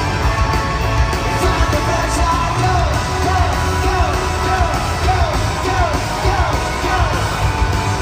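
Live pop-punk band playing loud through an arena sound system, with singing and yelling over drums and guitars.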